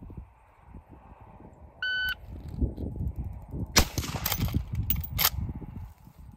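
A shot timer's short electronic beep, then about two seconds later a single shot from a Marlin 1894 lever-action rifle in .357 Magnum, followed about a second later by two sharp clicks.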